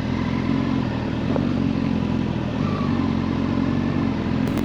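Honda Hornet 1000 SP's inline-four engine running steadily while riding, with a couple of slight rises in pitch.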